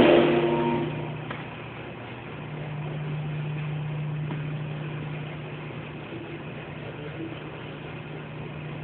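A car engine running steadily at idle, with a short loud pitched sound in the first second.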